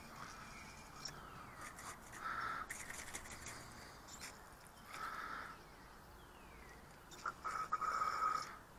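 Aerosol carburetor cleaner sprayed in short bursts through a thin extension straw into the passages of an outboard carburetor. There are about three bursts, and the longest and loudest comes near the end.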